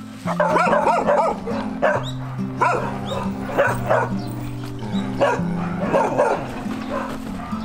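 Dogs barking and yelping in short repeated bursts, about one a second, over background music of held low notes.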